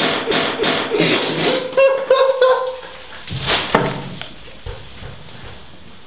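Muffled spluttering and coughing from a man whose mouth is stuffed with marshmallows, with a drawn-out whining groan about two seconds in, as he spits them into a paper towel; it dies down about four seconds in.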